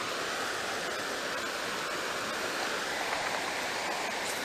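Steady rush of a small, shallow river running over rocks.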